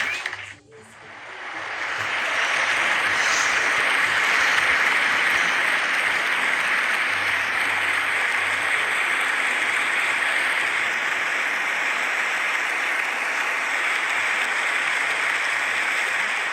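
Crowd applauding: after a brief break just under a second in, dense clapping swells up over a second or so and then holds steady.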